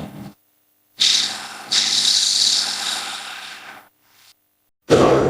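Monster roar sound effect for Godzilla: a hissing, breathy roar. It cuts in suddenly about a second in, swells again and fades away, and another roar starts near the end.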